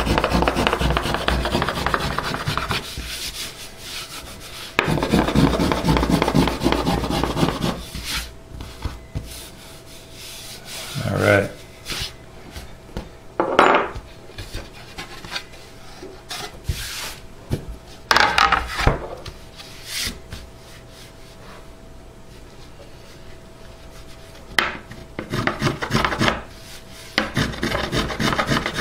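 Small brass finger plane shaving a maple guitar top, working down a hump in the carved arch. Quick back-and-forth scraping strokes run for the first few seconds and again about five seconds in. After that come single strokes a few seconds apart.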